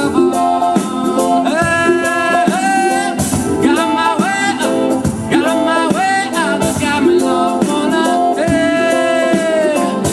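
A live band playing: a singer holds long, gliding notes over keyboard, guitar and hand percussion.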